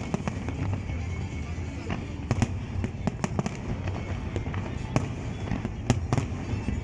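New Year's fireworks going off: sharp, irregular bangs a second or so apart over a continuous low rumble of more distant bursts.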